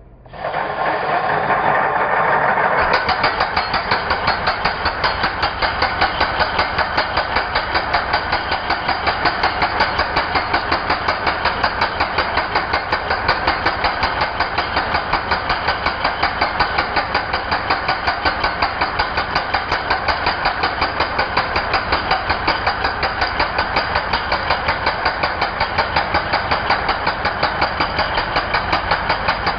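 Ingco 16 kg electric concrete breaker switched on and running, starting about half a second in and settling after a few seconds into a steady, rapid, even hammering.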